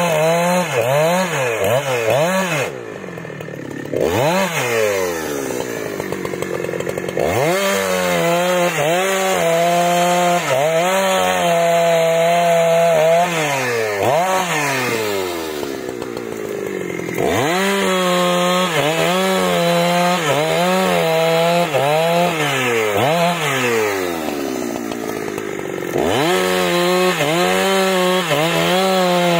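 Husqvarna 372 two-stroke chainsaw cutting through eucalyptus logs, running at high revs with its pitch rising and falling repeatedly as it is throttled and loaded in the wood. It drops to a lower level briefly about three seconds in and eases off twice more later.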